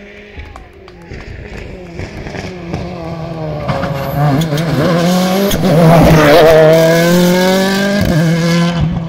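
Rally car engine approaching at speed, its revs rising and falling through the corners and growing louder to a peak about six seconds in, then staying loud as the car passes on up the road.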